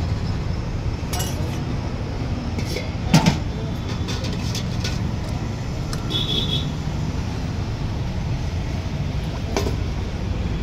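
Steel ladle clinking against stainless steel curry pots while food is served, with the loudest double clink about three seconds in. Underneath is a steady low rumble of road traffic.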